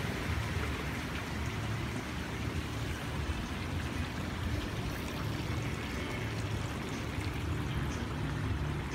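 Water trickling and flowing steadily in a shallow garden stream, with a steady low rumble underneath.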